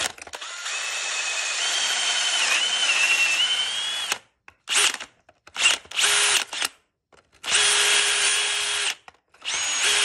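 Cordless drill boring a dowel hole in wood through a doweling jig: one continuous run of about four seconds, then several short trigger bursts and two longer runs as the bit is backed out to clear chips from the hole and driven back in.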